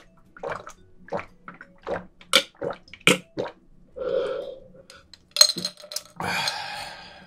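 A person gulping water from a glass close to the microphones: a run of swallows about three a second, then a breathy exhale near the end as the glass comes down.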